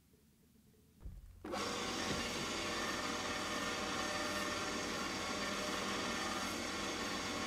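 Near silence, then from about a second and a half in a portable electric cement mixer runs steadily, its motor and turning drum giving an even mechanical whir.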